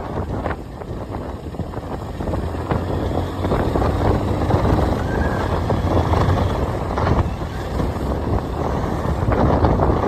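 Motorcycle riding noise: the engine's low rumble under wind buffeting the microphone, a steady rush that grows slightly louder about two seconds in.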